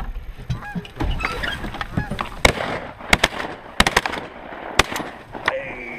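Geese honking, then a rapid volley of about seven shotgun shots over about three seconds from two hunters firing at the incoming geese.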